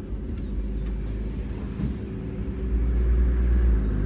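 Motor vehicle running, a low rumble that swells louder about three seconds in.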